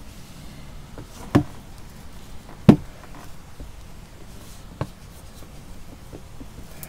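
A roll of tape rolled and pressed over a freshly glued rubber footer on a plastic canoe hull to flatten it and push out the air bubbles: soft rubbing and handling with three knocks, the loudest about two and a half seconds in.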